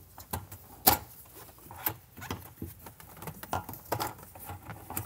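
Scattered light clicks and taps of a small ratchet with a 7 mm socket and a metal hose clamp being handled and fitted at the fuel tank's sender opening, the sharpest click about a second in.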